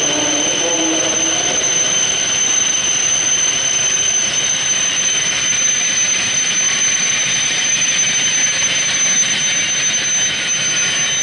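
E7/W7 series Shinkansen train arriving at the platform and slowing to a stop: a loud, steady rush of running noise with a steady high-pitched whine over it.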